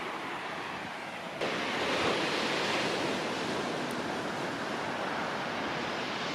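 Rough, storm-whipped sea surging and breaking on the shore, a steady rush of surf with wind. It gets louder and brighter about a second and a half in.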